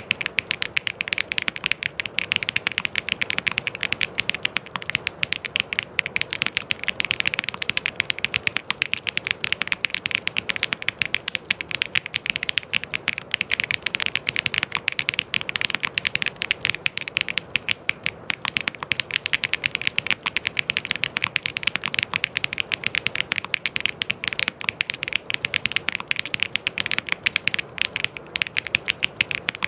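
Fast, continuous typing on a mechanical keyboard: a dense stream of sharp key clicks with no pauses.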